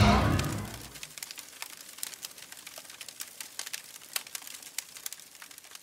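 Sound-effect hit with a deep boom at the start, fading over about a second, then irregular crackling and popping of burning embers.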